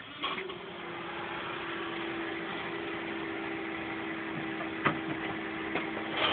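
A click, then a steady electric whir and hum that sets in within the first half second: a Renault Clio Group A rally car with its electrics switched on and the engine not yet started. A single sharp tick about five seconds in.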